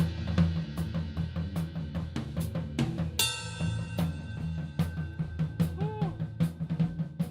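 A rock band playing live in the room: a drum kit keeps a steady beat on kick and snare over a low bass line, with a cymbal crash about three seconds in.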